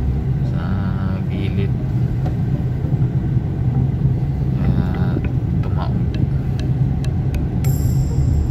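Car driving on the road, heard from inside the cabin as a steady low drone of engine and road noise.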